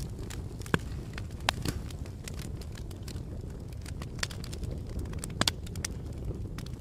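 Campfire burning: wood crackling with irregular sharp pops, a few louder snaps standing out, over a steady low rumble.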